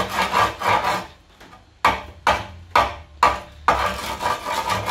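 Claw hammer scraping along and knocking a badly rusted old exhaust pipe, showing how corroded it is. A rough scraping first, then about five sharp knocks roughly half a second apart, then more scraping.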